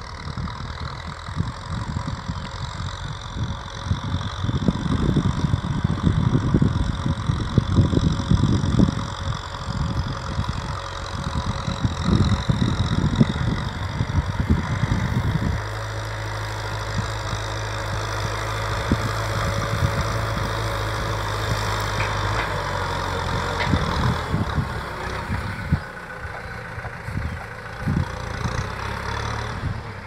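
Kubota M6040 SU tractor's diesel engine running steadily as it pulls a plough through the soil, with gusts of wind buffeting the microphone through the first half.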